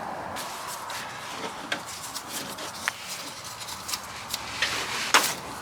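Hand tools clicking and knocking against metal while work starts on the transmission pan's drain plug and bolts: scattered, irregular clicks with a brief louder scrape near the end.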